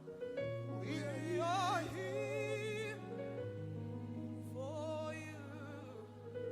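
Live gospel worship music: a singer's held, wavering notes with vibrato over sustained keyboard chords and a low bass note.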